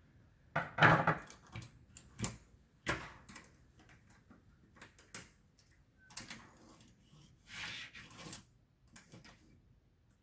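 Irregular clicks, clacks and short scrapes of a cheap tape measure's plastic case and steel blade being handled during work on its recoil spring.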